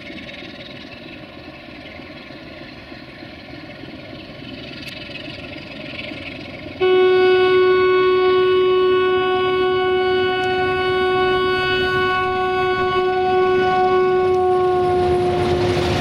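060-DA (LDE2100) diesel-electric locomotive with a Sulzer engine running as it approaches. About seven seconds in, its horn sounds one long loud steady tone for about eight seconds, dropping slightly in pitch near the end as the locomotive passes.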